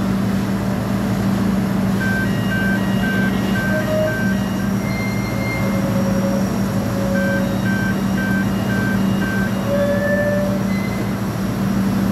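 Sany 600-ton crawler crane's diesel engine running steadily, with an electronic warning alarm sounding in runs of quick beeps, about three a second, and a few other electronic tones of varying pitch.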